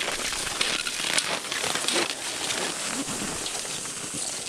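Cross-country skis, poles and a pulk sled crunching and crackling over dry snow at about −27 °C: a dense run of small, irregular crackles, easing off slightly toward the end.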